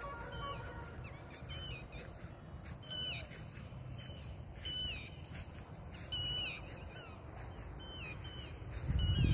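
Birds calling at dusk: short, high, falling chirps repeated every second or so, over a low rumble of wind on the microphone. A louder burst of low rumbling noise comes near the end.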